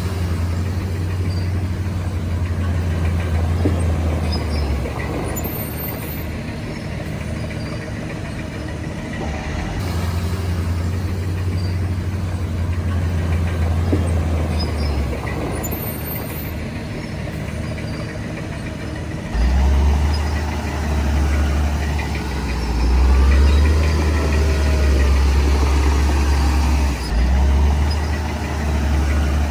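Diesel engine of heavy earthmoving machinery running steadily, low and heavy. It gets louder about nineteen seconds in, as if working under more load, and dips briefly near the end.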